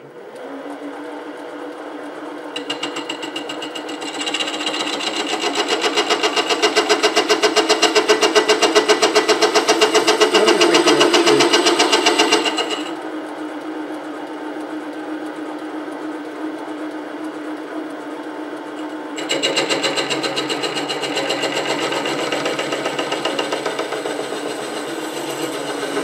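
SC2 mini lathe starting up and running with a steady motor whine, its tool cutting the face of a large aluminium workpiece. The cut comes in twice: loud with a rapid even pulsing from a few seconds in until about halfway, then again from about three-quarters of the way through, with the motor alone between.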